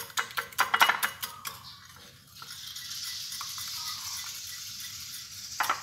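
Wire whisk beating an egg and celery mixture in a ceramic bowl: rapid clicks of the wires against the bowl. The whisking stops after about a second and a half, a steady hiss is heard for about three seconds, and the clicking starts again near the end.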